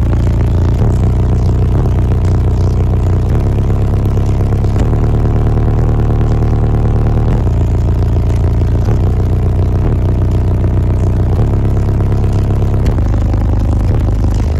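Wall of car-audio subwoofers playing a song's bass line at extreme volume inside the vehicle: deep, sustained bass notes that shift pitch every second or few and drown out the rest of the music.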